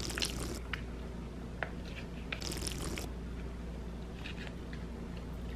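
Soft mouth sounds of applesauce being sucked from a plastic squeeze pouch: a few small clicks and squishes, with one longer sucking sound about two and a half seconds in.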